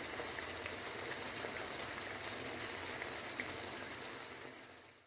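Pork belly braising in a dark sauce in a pan, the sauce simmering with a steady bubbling hiss and faint scattered pops; it fades out near the end.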